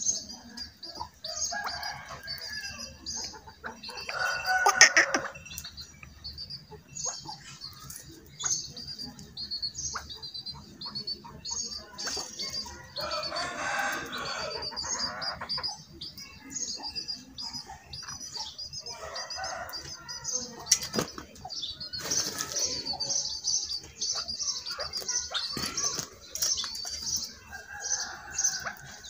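A chukar partridge flapping its wings in a wire cage in several bursts, over a steady run of high, rapid bird chirps.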